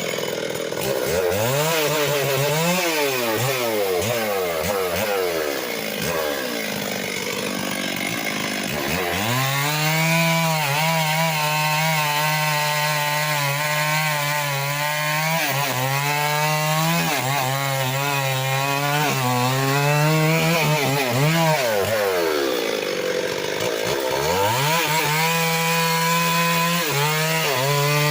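Stihl MS 381 two-stroke chainsaw revved up and down several times. It then runs at high throttle cutting into wood, its pitch dipping briefly again and again under load and rising back. Near the end come more quick revs.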